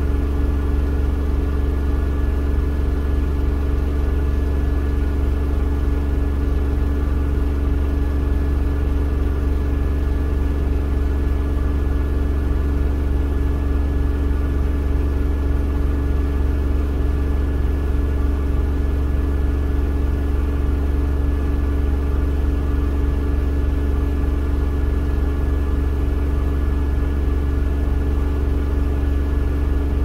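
Miele W1 front-loading washing machine spinning steadily at high speed, a loud even hum and whine from the drum and motor with no pauses.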